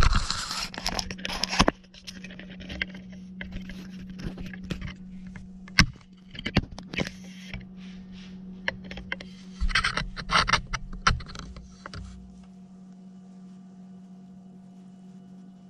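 Handling noises: scraping and rustling with a few sharp clicks, loudest in the first second and a half and again about ten seconds in, over a low steady hum.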